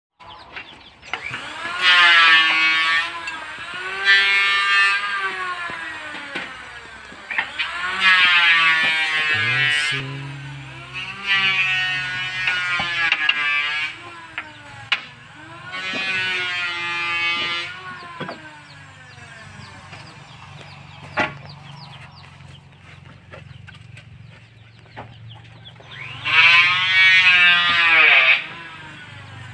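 Homemade table circular saw cutting jackfruit wood: the blade whines loudly in repeated passes of a couple of seconds each, its pitch dipping as it takes the load. The motor hums steadily between cuts.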